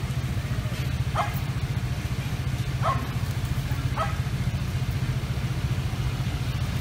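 A dog barking three short times, spread over a few seconds, over a steady low rumble of traffic.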